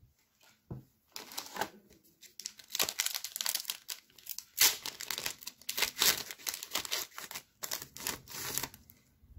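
Pokémon trading card booster pack wrapper being torn open and crinkled in the hands: a dense, irregular run of crackling rustles that starts about a second in and stops shortly before the end.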